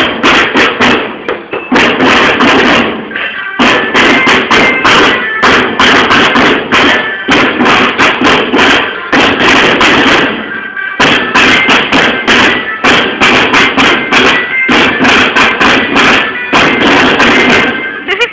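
A school drum band's marching snare drums playing a fast, loud rhythm in phrases, with brief breaks between them.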